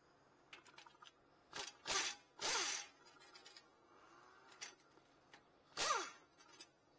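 Compact cordless impact wrench with a 19 mm short socket working the front brake caliper bracket bolts loose. There are four short bursts, the longest about half a second, several ending in a falling whine as the motor spins down, with light clicks between them.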